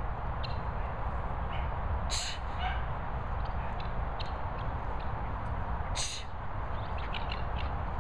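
Guinea fowl giving short, harsh calls, two loud ones about 2 and 6 seconds in, with fainter chirps in between, over a steady low rumble.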